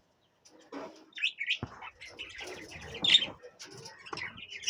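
Budgies chirping in short, repeated cheeps that start about a second in, with a few low knocks mixed in.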